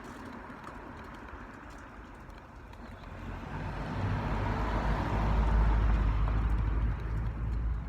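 A motor vehicle going past: a low engine and tyre rumble that swells from about three seconds in, is loudest for a couple of seconds, then fades near the end.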